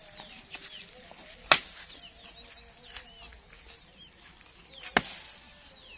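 Small birds chirping in many short quick calls, with two sharp knocks about three and a half seconds apart.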